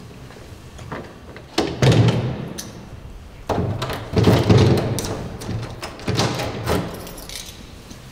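A door being handled and opened: a few sudden thuds and knocks with the latch, some of them ringing on briefly.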